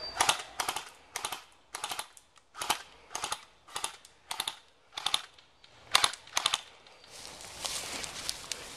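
Airsoft gun firing single shots, sharp clicky cracks at about two a second, several of them in quick pairs. The shots stop about seven seconds in.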